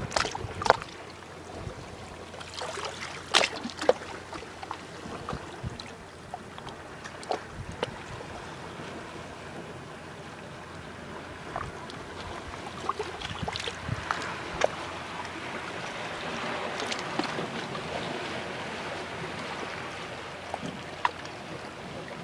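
Sea water lapping and sloshing, with scattered sharp little splashes. A broader wash of water swells and eases again in the second half.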